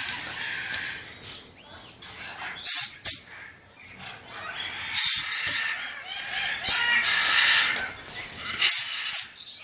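Parrots squawking and screeching: ongoing high-pitched chatter with several loud, sharp cries, about three seconds in, at five seconds and near the end.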